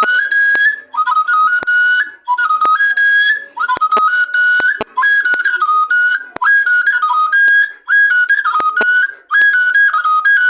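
Igbo ọja wooden flute played in short phrases that step between two or three high notes, with brief breaks between phrases. Sharp clicks sound here and there between and within the phrases.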